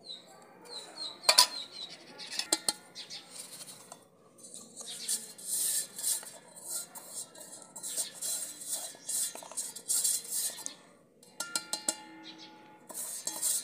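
Steel mixer-grinder jar being emptied of powdered rock sugar into a small steel bowl: metal clinks and taps of jar against bowl, with scraping and rustling of the powder in the middle, and a quick run of taps near the end as the jar is knocked to shake out the last of it.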